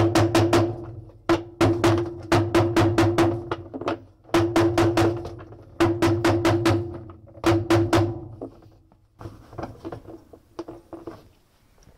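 Hammer striking a bearing driver die, driving a 6005-2RS ball bearing into the washing machine's drive bearing housing: bursts of rapid metal strikes with a ringing tone, several a second, separated by short pauses. The strikes grow lighter and fainter near the end as the bearing seats home.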